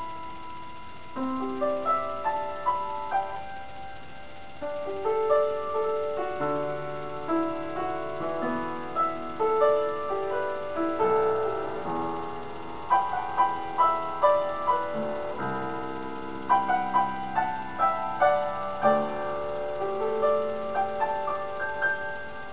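Solo piece on an upright piano: a melody of distinct notes over held lower notes, with runs of quicker notes in places.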